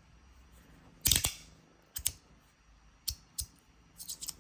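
Heavy metal magnetic slider fidget (Top Speed Slider) being slid by hand, giving a few sharp irregular clicks as it snaps between its magnetic positions, the loudest about a second in.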